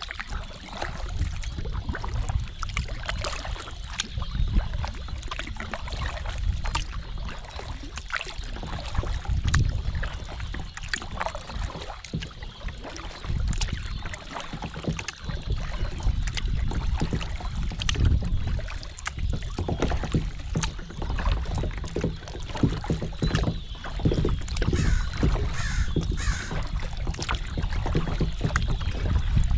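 A flock of birds calling repeatedly over the steady low rush of water and wind as a kayak moves along a calm canal.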